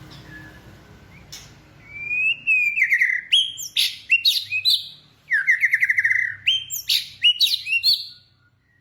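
Flamingos calling: a run of harsh, rapidly pulsed calls that start about two seconds in, come in several rising and falling bouts, and stop shortly before the end.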